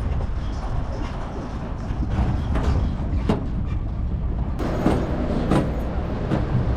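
Motor vehicle engine running with a steady low rumble in a stalled traffic jam, with a few short sharp knocks or clicks in the second half.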